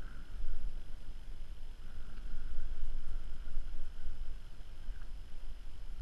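Wind buffeting the microphone, a low rumble that gusts and eases unevenly over a faint steady hiss.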